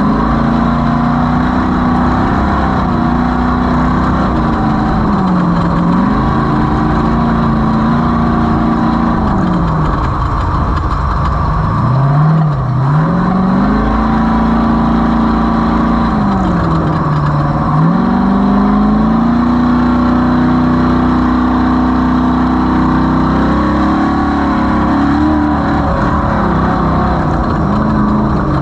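Off-road race vehicle's engine running hard and steadily, its speed dropping and climbing back several times, with the deepest dip about twelve seconds in and others near six and seventeen seconds.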